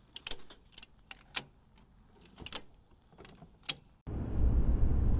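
Ratchet tie-down strap being cranked by hand: a handful of sharp metallic clicks at uneven intervals. About four seconds in it cuts to the steady low rumble of road and engine noise inside a moving vehicle.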